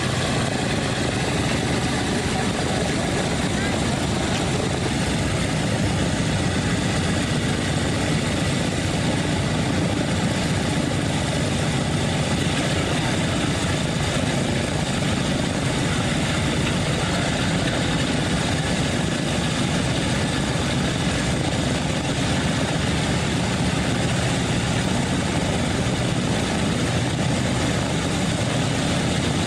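Boeing B-17G Flying Fortress's four Wright R-1820 Cyclone radial engines idling together with propellers turning, a steady, unbroken drone.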